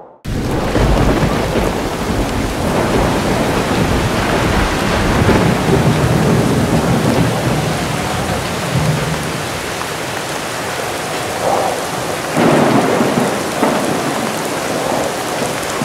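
Heavy rain falling in a thunderstorm, with thunder rumbling low under the rain through the first half. The sound starts suddenly just after the beginning and swells again about twelve seconds in.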